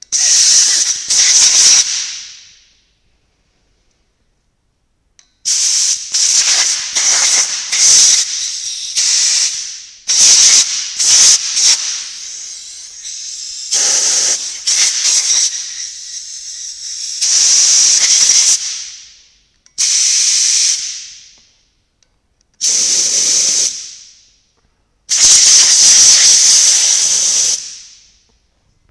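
Compressed air blown at high pressure through a BMW M54 crankshaft and its oil holes to clear out debris. It comes as about seven loud hissing blasts of a second or more each, some cut into quick short pulses.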